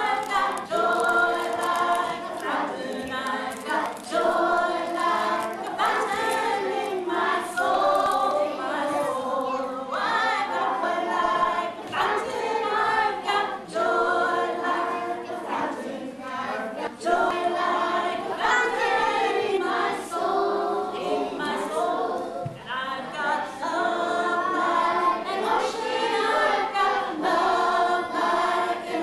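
A group of children singing together with a woman leading them, an action song sung as a group with no clear instrument heard.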